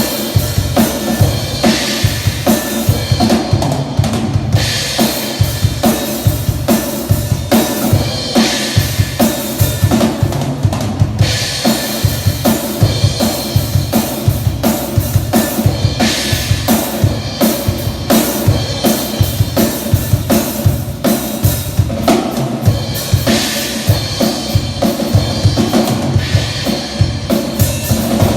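Drum kit playing a steady groove, with bass drum and snare prominent and a bright cymbal wash coming in every few seconds.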